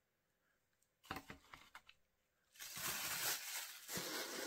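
A few light clicks and knocks from handling a parcel, then from about two and a half seconds in a steady rustling of packaging being unwrapped.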